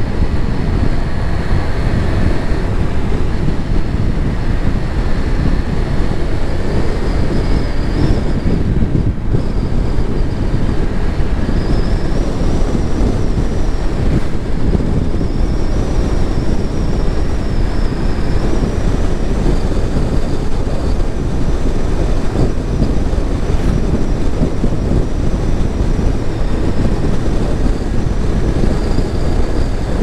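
Car driving steadily along a road: continuous low road and engine rumble without a break.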